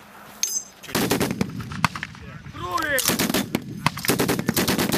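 DShK 12.7 mm heavy machine gun firing three bursts of rapid shots, the first starting about a second in, with short pauses between them.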